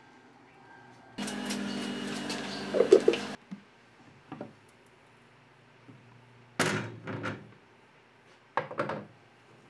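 A steady mechanical hum for about two seconds, cut off suddenly, then two clusters of heavy wooden knocks and thunks a couple of seconds apart: workshop handling noise around a woodturning lathe.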